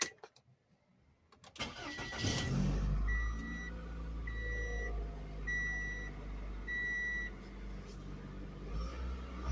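Toyota car engine cranking and catching about two seconds in, then running steadily, with a new crankshaft position sensor fitted. A dashboard warning chime beeps five times, about once every second and a bit, as it starts.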